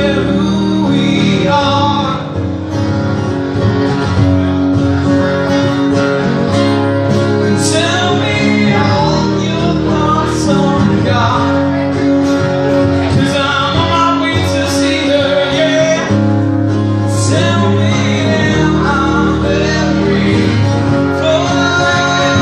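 Live acoustic band: two acoustic guitars strumming chords under a male lead vocal, amplified through a PA.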